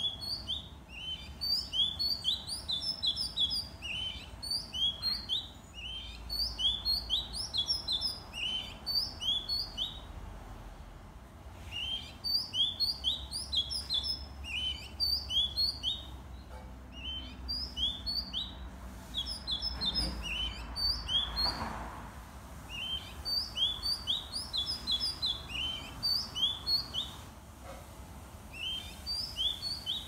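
White-rumped shama singing: phrases of rapid, sharp, high chirps and whistles, each phrase a couple of seconds long with short pauses between.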